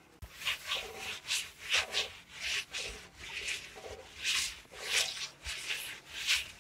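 Cloth-wrapped hand rubbing the inside wall of a clay tandoor oven, a run of quick, uneven scrubbing strokes about two a second.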